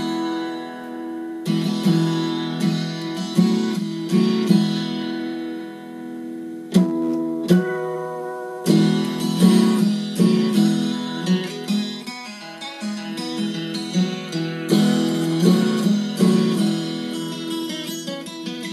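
Acoustic guitar music with strummed chords and plucked notes, played through the Montgomery Ward stereo unit's speaker, with hardly any deep bass.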